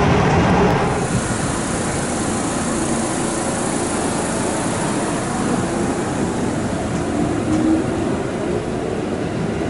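JR West 221 series electric train running: briefly heard from inside the carriage, then from the platform about a second in as the train moves off alongside it. A faint whine rises in pitch near the end.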